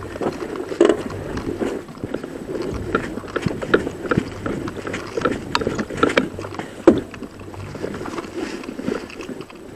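Footsteps on dry grass and dirt, with the rustle and knocking of clothing and gear, picked up close by a camera worn on the moving player; irregular knocks and scuffs throughout, a few sharper knocks standing out.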